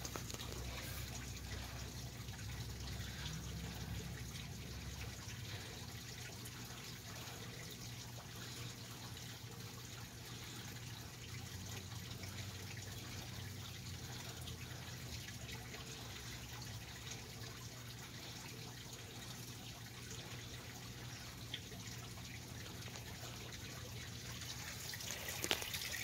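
Steady, faint trickle of running water over a low hum.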